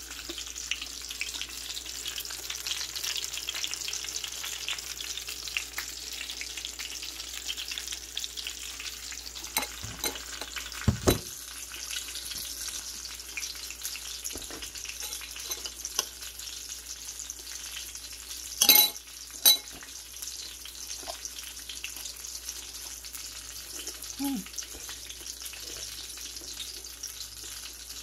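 Hot oil sizzling steadily as food fries, broken by a few sharp knocks, the loudest a pair about two-thirds of the way through.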